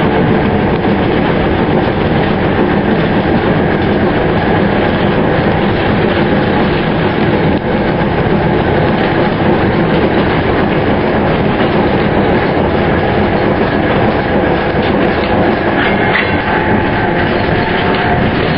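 Vintage Wellington electric tram running along its track, heard from inside the passenger saloon: a steady rumble of wheels on rails with a faint steady hum over it.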